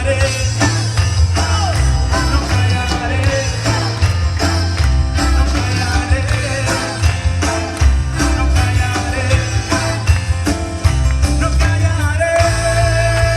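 A live band playing an upbeat worship song, with a drum kit keeping a steady beat under heavy bass and a bending melodic line. A long held note comes in near the end.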